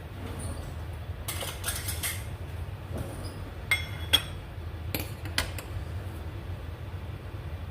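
Metal kitchenware clinking: a pot, lid or utensils knocking together about eight times at irregular moments in the first half, over a steady low hum.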